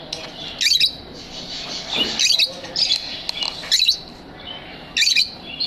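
Lovebirds chirping: about five loud, shrill chirps roughly a second apart over steady softer chattering from the flock.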